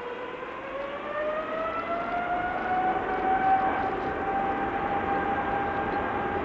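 Boeing 777-300ER's GE90-115B jet engines spooling up for the takeoff roll. A high whine rises in pitch over the first few seconds and then holds steady, while the rushing jet noise beneath it grows louder.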